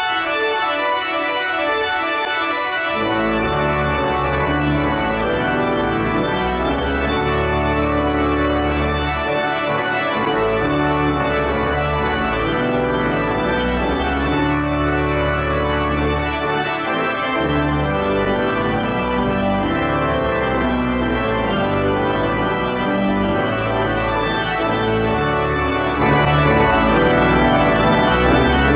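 Church pipe organ playing the closing voluntary, with sustained chords; a deep pedal bass comes in about three seconds in, and the organ grows louder near the end.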